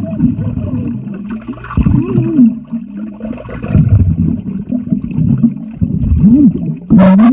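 Sound heard through an underwater microphone in a pool: muffled gurgling and bubbling, with low, wavering voice-like sounds from people underwater. A short, sharper burst comes near the end.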